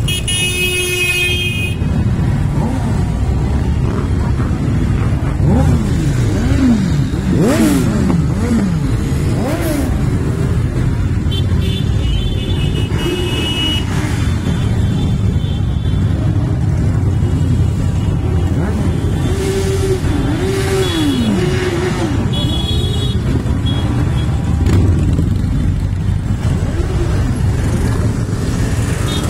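A procession of many motorcycles riding slowly past one after another, their engines running steadily with repeated rises and falls in revs as riders blip the throttle. Short horn toots sound several times.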